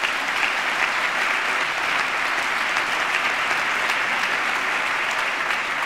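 Steady applause from a large audience clapping, sustained throughout.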